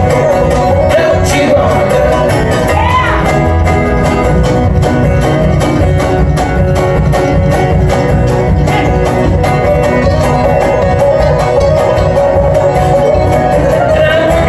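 Live bluegrass band playing a driving number: banjo rolls, strummed acoustic guitars, mandolin and upright bass over a steady beat.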